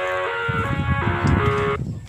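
Background music: a simple melody of held single notes, joined about halfway in by a low, uneven rumble, and dropping out briefly near the end.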